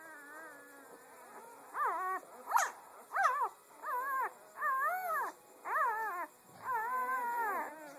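Five-day-old German Shepherd puppies whimpering and crying: a string of about seven high whines that rise and fall in pitch, the last one the longest.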